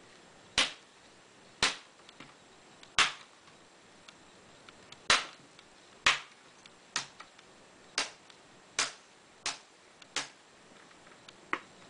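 Plastic snap clips of a Dell Inspiron 15 5547's screen bezel popping loose one after another as the bezel is pried off around its edge: about eleven sharp clicks at irregular intervals, roughly a second apart.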